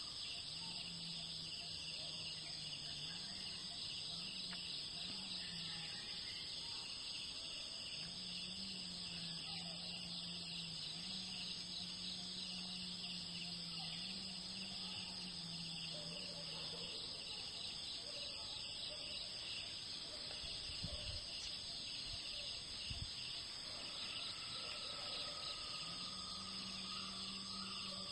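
Steady high-pitched chirring of insects in the forest, with a faint low drone that shifts up and down in pitch now and then and two soft thuds near the end.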